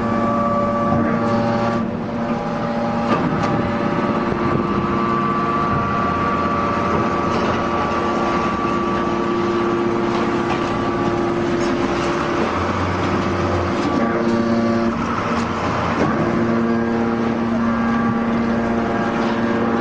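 Hydraulic scrap metal baler running: a steady mechanical hum of several tones over a noise haze, with a few short knocks.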